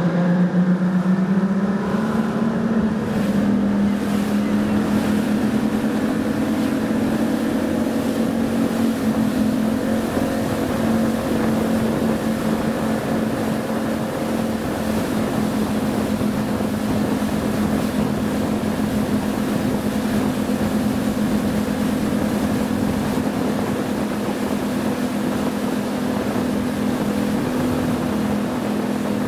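Motorboat engine under way, its pitch rising over the first couple of seconds as it speeds up, then running steadily, with constant wash noise.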